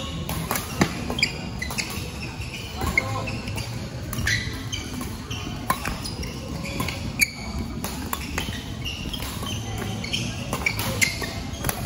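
Badminton rally: sharp racket strikes on the shuttlecock every second or so, with short shoe squeaks on the court floor between them.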